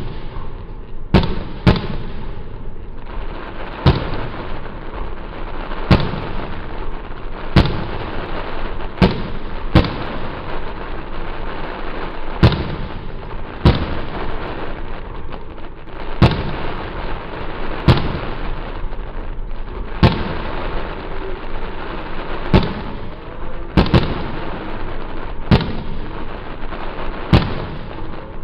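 Aerial fireworks going off overhead: a run of sharp bangs, one every one to two seconds, over a continuous crackling hiss.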